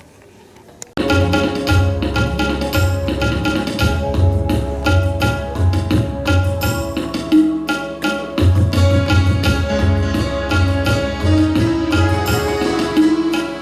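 Music for a Sikh Shabad hymn starts suddenly about a second in: tabla beating a steady rhythm under sustained melody notes.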